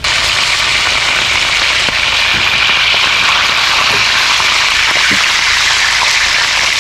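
Whole fish deep-frying in hot oil in a cast iron skillet: a loud, steady sizzle with a few small pops.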